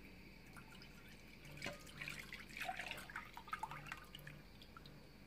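Milk dripping and trickling into a mixing bowl: a faint, irregular scatter of small drips from about a second and a half in, lasting a couple of seconds.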